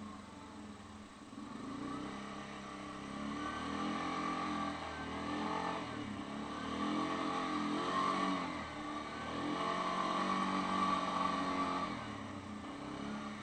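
Yamaha Grizzly 550 ATV's single-cylinder four-stroke engine pulling across rough dirt and up a hill, its revs rising and falling under the throttle. It gets louder and higher from about a third of the way in, then eases off near the end.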